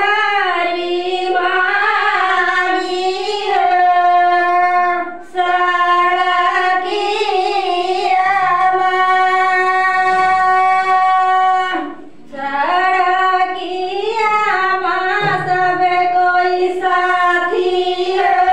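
A high solo voice singing a Shiva bhajan in long, drawn-out notes, pausing for breath twice.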